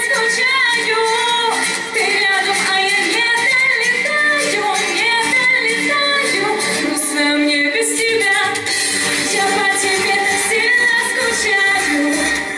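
A woman singing a pop song live into a handheld microphone, with instrumental accompaniment, amplified through the PA of a large hall.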